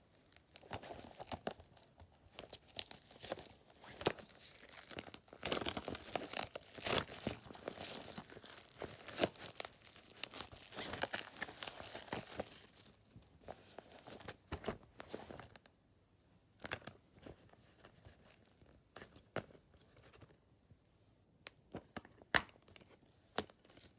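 Plastic shrink wrap being torn and crinkled off a Blu-ray case, densest and loudest for several seconds in the middle, then thinning out to scattered clicks and taps.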